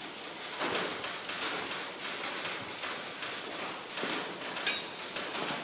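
Light metallic clicks and taps of head studs and a stud-fitting tool being handled and turned on a Ferguson TEA20 cast-iron engine block, with one sharper metal clink about five seconds in.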